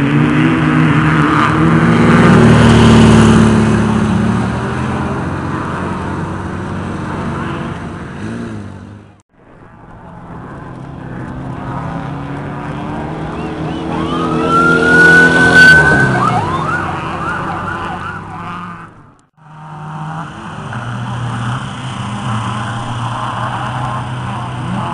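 Off-road race car engines running and revving, in three stretches separated by brief drops to silence. In the middle stretch an engine revs up in a rising whine that cuts off suddenly.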